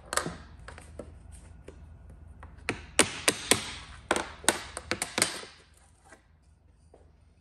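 Hammer tapping on a wooden block to drive a rusty, tight-fitting metal channel off the edge of a pinball backglass: a run of sharp knocks, with several hard strikes bunched between about three and five seconds in.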